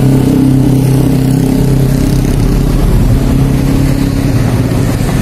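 An engine or motor running steadily and loudly at a constant pitch.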